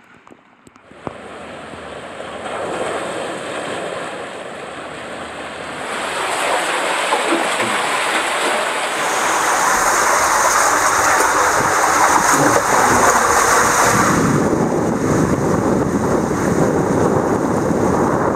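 Rushing water and a body sliding fast through an enclosed plastic tube water slide, heard from a camera riding along. After a brief quiet start the rush builds, and it grows louder about six seconds in.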